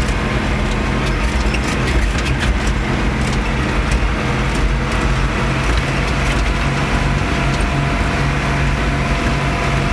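Tractor engine running steadily, with scattered rattling clicks in the first few seconds.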